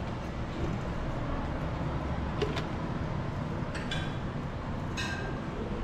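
Steady low rumble of background noise, with three short high-pitched clinks about two and a half, four and five seconds in.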